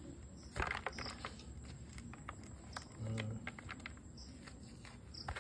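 Mushroom spawn being broken apart by hand into a bamboo basket: the mycelium-bound grains crackle and crumble in scattered light clicks, thickest about a second in.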